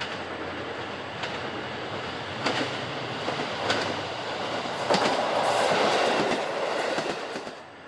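Hayato no Kaze diesel railcar train passing close by, its wheels clacking over rail joints about once a second. The sound grows to its loudest as the cars go past, then drops off near the end.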